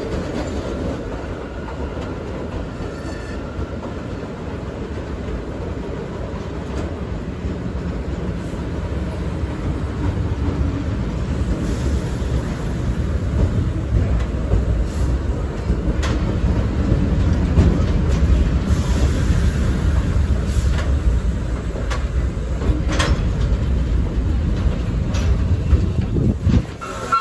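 Vintage R1/R9-series subway cars running through the tunnel, heard at the car end by the between-car gangway: a steady heavy rumble of wheels and running gear, growing louder over the first half, with occasional sharp clicks over the rail joints.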